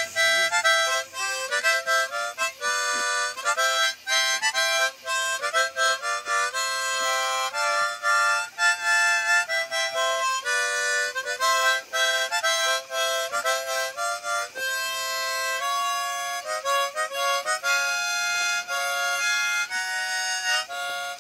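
Harmonica music: a fast tune of quick, changing notes, often several sounding together as chords.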